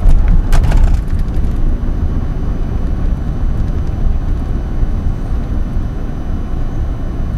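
Car driving along a road, heard from inside the car: a steady low rumble of road and engine noise, with a few short knocks in the first second or so.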